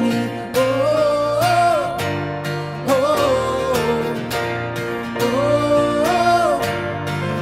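Live worship band music: a strummed acoustic guitar and a Nord Stage 3 keyboard play a steady rhythm under a held, gliding melody line, between the sung lines of the song.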